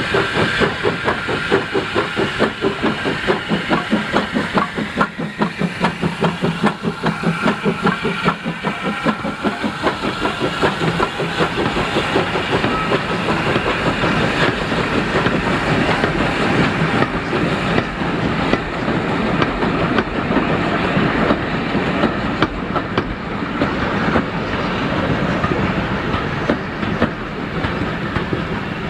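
Avonside saddle tank steam locomotive working past with a fast, regular exhaust beat that fades over the first ten seconds or so. Then vintage six-wheel coaches roll by, their wheels clicking over the rail joints.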